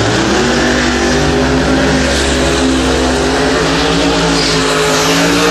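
Drag race car engines rev up sharply and then hold steady at high rpm, loud and continuous, as in a burnout spinning the rear tyres.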